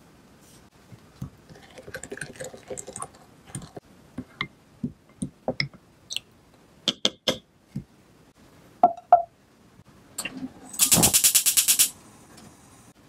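Black pepper shaker tapped and rattled over a ceramic bowl, then a wooden spoon stirring sauce with scattered clicks and clinks against the bowl. Near the end a gas stove's igniter ticks rapidly for about a second, the loudest sound.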